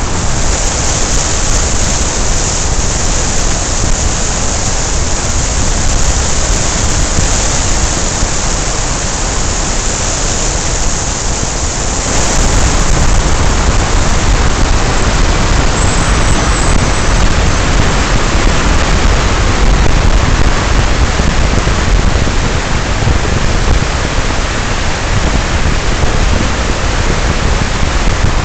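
Wind rushing hard over the microphone from an open-top convertible moving at highway speed, with tyre and road noise underneath; it grows louder about twelve seconds in.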